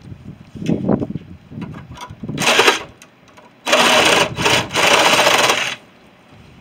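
Power saw cutting metal in two runs: a short one about two and a half seconds in, then a longer one of about two seconds.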